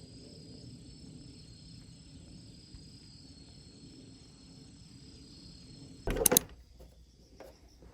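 A steady low hum under faint, pulsing high insect chirring, then a brief loud rattling clatter about six seconds in.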